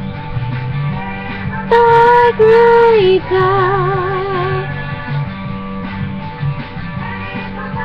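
Music: a song with a singer who holds a long note, wavering with vibrato, from about two to nearly five seconds in, over a steady accompaniment.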